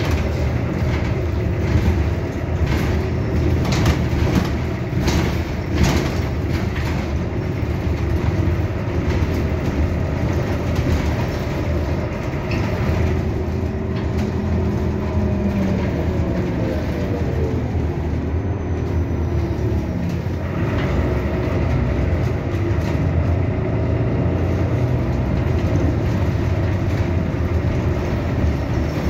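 Cabin noise of an Irisbus Citelis 12 city bus under way: steady engine and road rumble with rattles from the interior. A whine slides down in pitch around the middle of the ride, then the engine noise picks up again.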